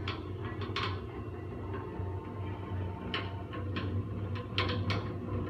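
Scattered light clicks and knocks, about eight at irregular intervals, over a steady low hum.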